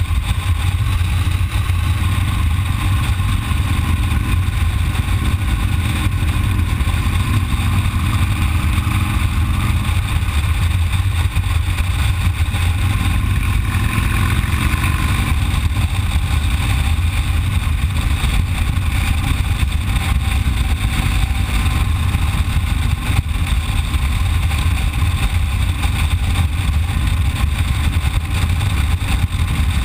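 Cruiser motorcycle engine running at a steady riding speed, heard from on the bike with heavy wind noise on the microphone as a constant low rumble.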